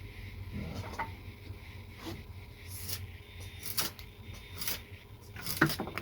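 Freshly sharpened bill hook slicing through paper: short crisp swishes about once a second, growing more frequent in the second half, over a low steady hum.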